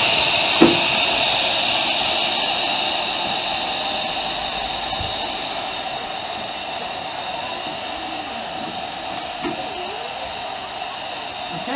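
Steam hissing steadily from a small 15-inch-gauge steam locomotive, slowly fading away, with one sharp click about half a second in.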